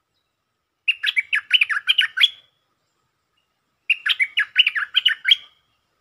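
Merbah lekir bulbul singing two short, fast phrases of about eight sharp, chattering notes each, with a pause of about a second and a half between them.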